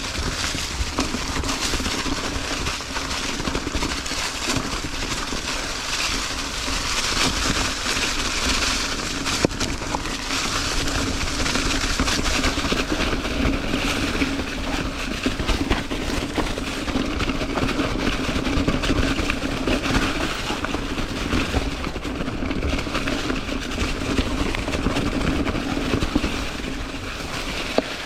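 Ibis Ripmo full-suspension mountain bike riding over a rocky trail: tyres rolling and crunching over rock, with a constant rattle of sharp clicks from the chain and frame. Heavy wind rumble on the microphone underneath.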